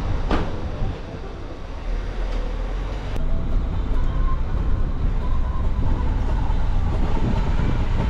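Steady low rumble of wind buffeting the microphone, mixed with street and traffic noise, as the camera moves along a town street; a single sharp click about a third of a second in.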